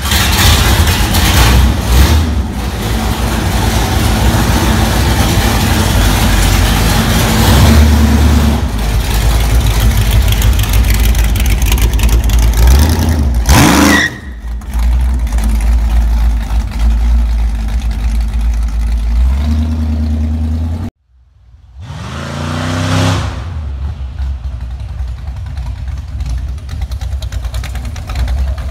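Boss Hoss motorcycle's Chevrolet V8 running loud and being revved, with a newly installed transmission, as the bike pulls away. After a sudden break it passes by with a falling pitch and then runs more quietly.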